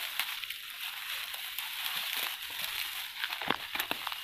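Dry grass rustling and crunching as it is grabbed and pulled up by hand, with a few sharper cracks about three and a half seconds in.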